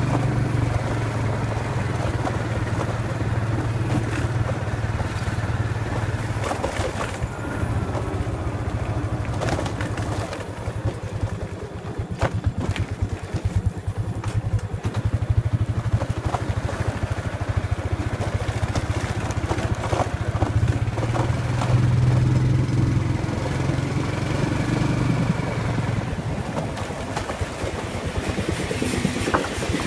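Small motorbike engine running as the bike rides along, easing off in the middle before pulling harder again, with scattered knocks and rattles from the bike.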